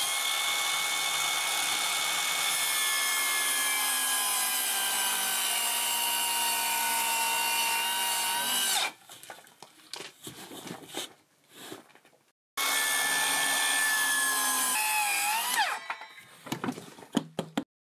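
Cordless circular saw cutting through wood-fibre board. It runs a long cut of about nine seconds, a steady high whine whose pitch sags slowly under load, and then stops. A few seconds later a shorter second cut follows, dipping and rising in pitch as the blade runs out. A few light knocks come near the end.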